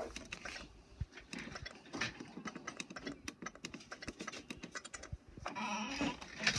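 Fingers tapping and pressing the buttons on an HP OfficeJet printer's control panel, a quick run of small clicks. Near the end a louder, steadier sound lasts about a second.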